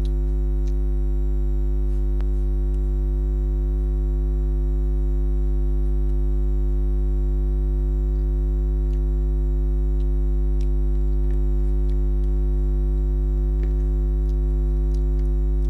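Loud, steady electrical hum with a ladder of buzzing overtones, unchanging throughout: a recording fault that drowns the audio. A few faint clicks sit under it.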